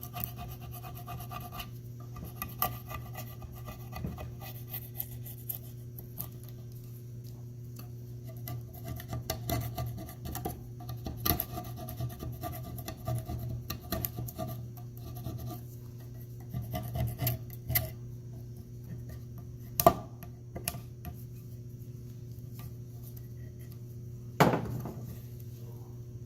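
Hand scraping and rubbing on the metal sealing face of a BMW E36 differential cover, clearing off the old paper gasket ahead of RTV, in short irregular strokes over a steady low hum. There is a sharp metallic click about twenty seconds in and a louder ringing clank near the end.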